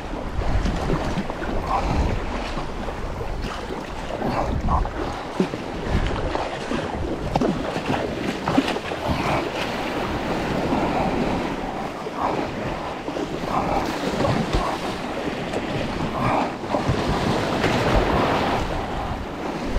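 Choppy sea rushing and splashing against a sea kayak's bow as it punches through breaking waves, with wind buffeting the microphone.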